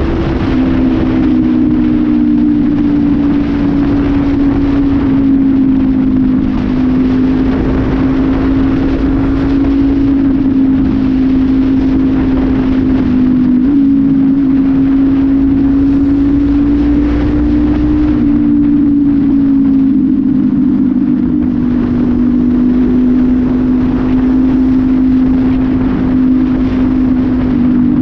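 Honda CB500F parallel-twin engine running through an aftermarket slip-on exhaust with no air filter, held at a steady cruise on the road. One strong, even drone that drifts slightly up and down in pitch, with a hiss of wind and road noise underneath.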